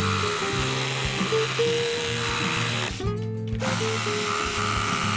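DeWalt 20V Max compact brushless reciprocating saw (sawzall) cutting through old wooden fence boards. It stops briefly about three seconds in and starts cutting again, with background music throughout.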